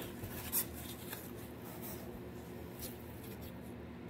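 Hands rubbing over and handling a carved foam insulation board: a few light, scratchy scrapes, the clearest about half a second in, over a steady low hum.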